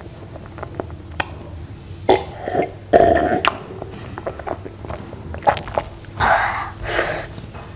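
Close-miked mouth sounds of a person with a mouthful of cake drinking water from a glass: a few loud gulps about two to three and a half seconds in, small wet mouth clicks, then two breathy exhales near the end.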